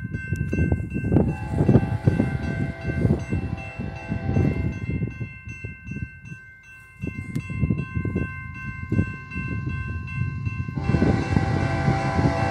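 Air horn of an approaching BNSF freight locomotive sounding for the crossing in long blasts, getting much louder from about eleven seconds in. Wind rumbles on the microphone throughout.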